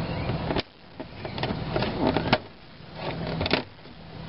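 Plastic dash side cover being pried off with a trim tool: a few sharp clicks as its retaining clips pop loose, the loudest about two seconds in, with plastic scraping and handling noise between.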